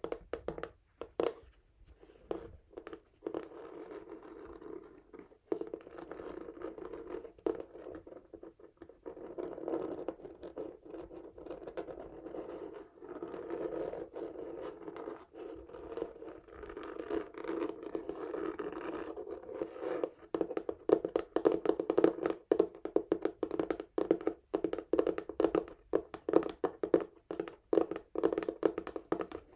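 Fingernails scratching a textured cardboard box in many quick strokes, with a few taps near the start. The scratching grows louder and quicker about two-thirds of the way through.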